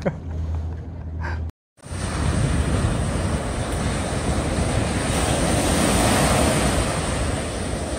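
Small waves breaking and washing up onto a sandy beach in a steady rush of surf. Before that, a brief low rumble cuts off about a second and a half in.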